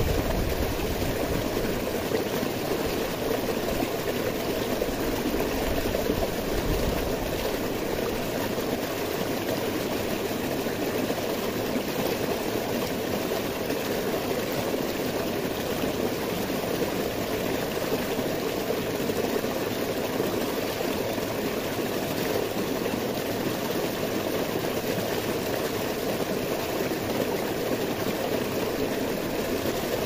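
Small rocky stream splashing and cascading over boulders: a steady, even rush of water.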